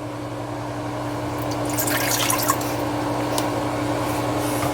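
Water being poured into a container and steadily filling it: the cup of water that goes into the bottom of an Instant Pot pressure cooker. The pour grows gradually louder, with a few splashes about two seconds in.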